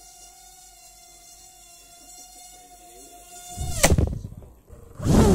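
Micro quadcopter's tiny brushed coreless motors whining at a steady high pitch, then the whine drops away sharply about three and a half seconds in as the quad crashes, with a loud knock and clattering, and more loud scraping near the end.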